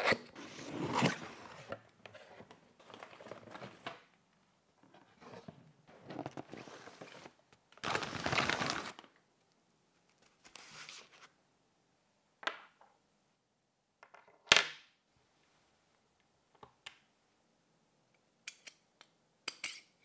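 Cardboard motherboard box being opened and its packaging handled, with rustling and sliding, then a series of sharp clicks and clinks of small hard parts being handled and set down, the loudest about two-thirds of the way through.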